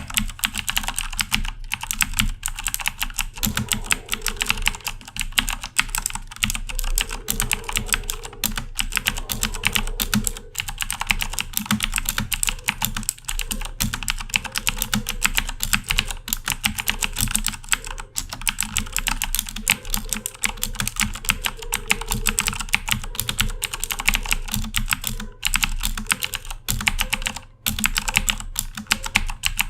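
Continuous fast typing on a Corsair K70 mechanical keyboard with Cherry MX Blue switches: a dense run of sharp, clicky keystrokes, many per second, without a pause.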